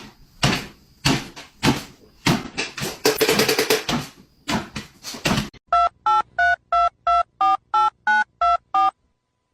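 A quick run of sharp clicks and knocks, then ten short telephone keypad tones, about three a second, as a number is dialed.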